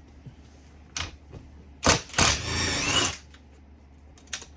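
Socket wrench working the seat-bracket bolts: a few sharp metal clicks, then about a second of rapid ratcheting clatter.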